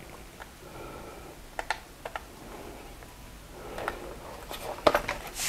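Screwdriver bit case being handled and opened, with small scattered clicks of its catches and the bits inside, and a quicker run of clicks near the end.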